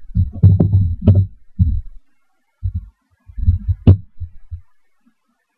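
Computer keyboard typing and mouse clicks, picked up close to the microphone as irregular clusters of dull low thumps with a sharper click about four seconds in.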